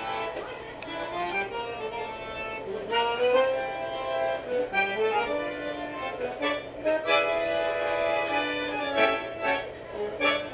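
Bandoneón being played: a melody of held reed notes that thickens into fuller chords about seven seconds in, followed by short clipped notes near the end.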